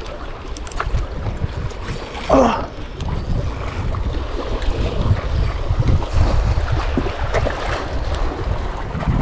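Wind buffeting the microphone in a steady low rumble, with sea waves washing against the rocks.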